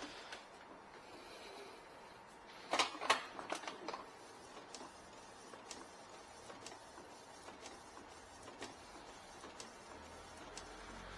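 Canon PIXMA iX6770 inkjet printer running, with a cluster of clicks and knocks about three seconds in, then faint ticks roughly once a second. The ticking comes from the add-on continuous-ink-supply tubes tapping the printer's top cover as the print carriage travels.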